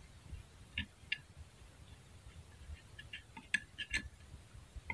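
Pestle grinding spices in a stone mortar (cobek): faint, irregular clicks and scrapes, a couple about a second in and a quick run of sharper knocks around three to four seconds in.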